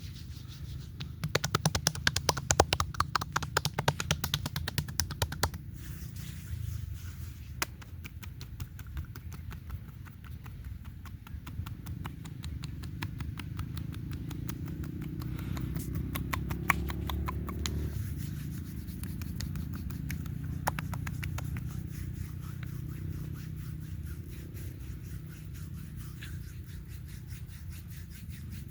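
Hands massaging oiled skin: a quick run of taps in the first few seconds, then steady rubbing and pressing with small clicks.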